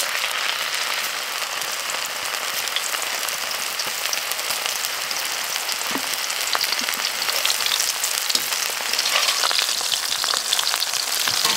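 Gator bites deep-frying in hot grapeseed oil in a wok: a steady, dense sizzle and crackle of bubbling oil.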